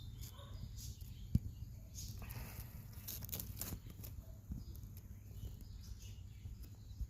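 Quiet outdoor ambience: a low steady rumble with light rustles and one sharp click a little over a second in.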